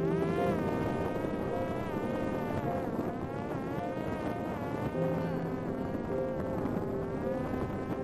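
Electric motor and propeller of a Parrot Disco fixed-wing drone whining in flight, the pitch dipping and climbing back several times as the power changes. Wind rushes steadily underneath.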